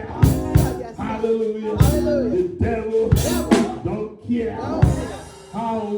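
Live church music: a drum kit hitting loud, irregular accents over held instrument notes, with voices singing or calling out.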